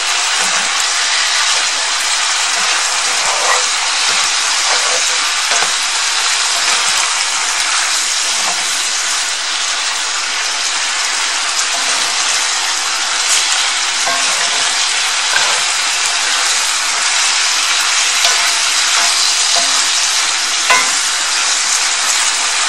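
Chicken, sliced onion and holy basil sizzling in a hot cast-iron skillet as they are stirred: a steady frying hiss with a few light clicks of the utensil against the pan.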